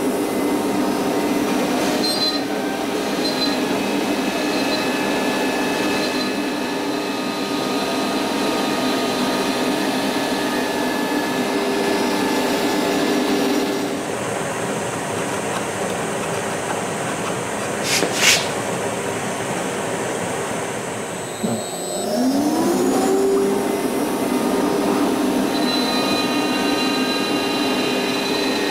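CNC router spindle running with its dust extraction on, milling the MDF spoilboard: a steady high hum over the rush of the extractor. About halfway in the spindle's hum drops away and only the extractor rushes on. A sharp click comes a little later, then the spindle spins back up with a rising whine and runs steadily again.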